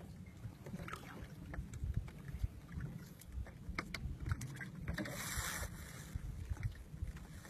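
Low rumble of wind on the microphone, with scattered small knocks and clicks and a brief hiss about five seconds in.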